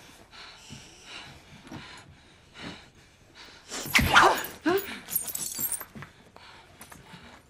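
Scuffling and hard breathing in a fight, then a heavy blow about four seconds in with a sharp cry. Glass shatters and the pieces tinkle down a second later.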